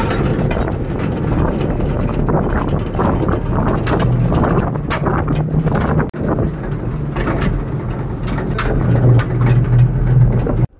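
Truck engine running with wind and road noise, heard from the open back of the moving truck, with loose metal rattling throughout. The engine hum grows louder in the last few seconds, and the sound cuts off abruptly just before the end.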